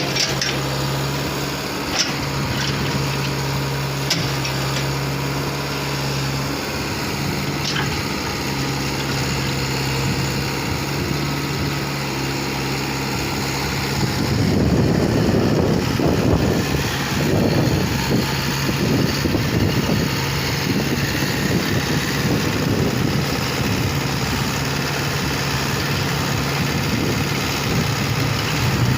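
Heavy machine's diesel engine running steadily, with a few sharp clicks early on. About halfway through it turns louder and rougher, as if under load.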